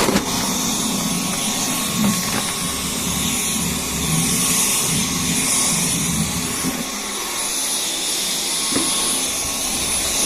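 Dyson V10 cordless stick vacuum running steadily, a high airy whine with a thin steady high tone; its lower rumble drops away about seven seconds in.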